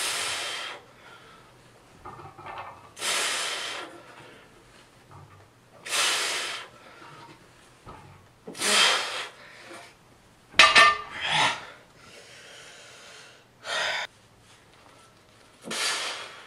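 A man breathing hard through repeated barbell lifts: a forceful exhale with each rep, roughly every two to three seconds, with quieter breathing between. About two-thirds in comes a louder, harsher burst.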